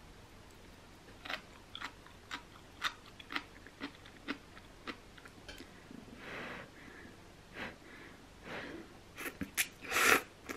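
Close-up eating sounds: crunchy chewing at about two bites a second, then noisy slurps of instant noodles, loudest near the end.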